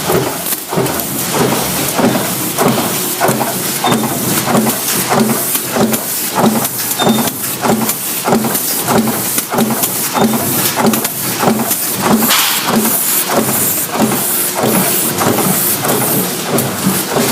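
Factory machinery running, with a rapid, even rhythm of clattering knocks, about two to three a second, over a steady hiss.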